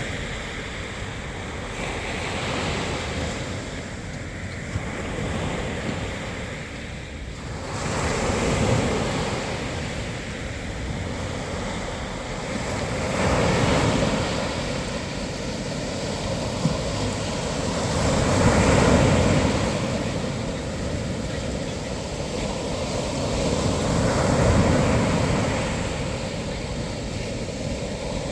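Sea waves breaking on the shore: a steady rushing surf that swells and ebbs, with a louder wave about every five seconds.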